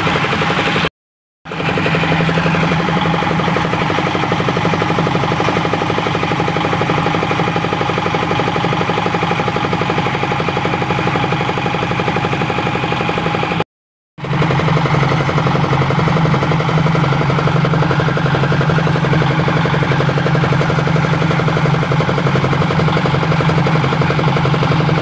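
An engine running steadily. The sound cuts out briefly about a second in and again about halfway through.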